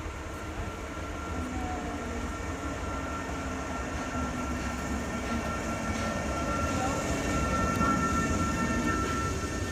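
NS SGMm Sprinter electric multiple unit pulling into the platform and slowing as it arrives, a steady whine over its running rumble, growing louder as it draws alongside.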